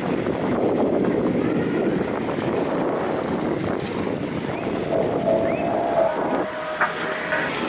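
Inline skate wheels rolling fast on asphalt as the skaters coast down a slope: a steady rolling hiss, with wind buffeting the microphone.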